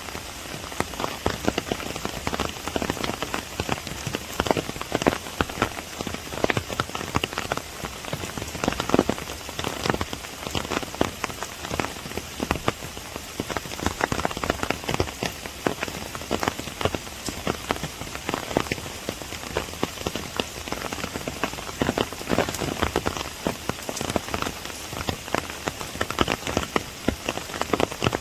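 Steady rain falling in a bamboo grove, with dense, irregular taps of large drops striking an umbrella overhead.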